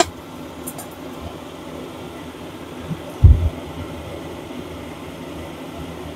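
Gas stove burner turned up to a high flame, a steady rushing as oil heats in the pan, with one low thump a little past the middle.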